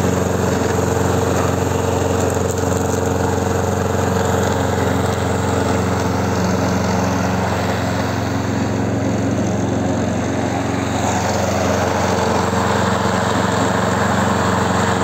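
Honda single-cylinder engine of a Marinox stainless-steel-deck walk-behind lawn mower running steadily at an even speed.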